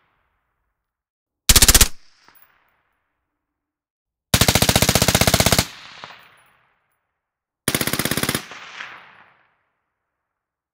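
Fully automatic M16 rifle fitted with an SRT Arms Typhoon .223 suppressor, firing three bursts of rapid shots. A short burst comes about a second and a half in, a longer one lasting over a second at about four seconds, and a shorter one near eight seconds. Each burst is followed by a fading echo. The bursts are heard through microphones at different distances from the muzzle.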